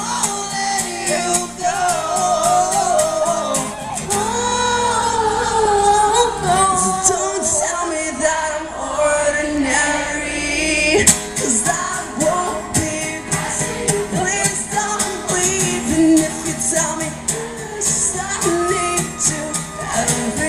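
Live rock band playing, with singing over guitars and drums.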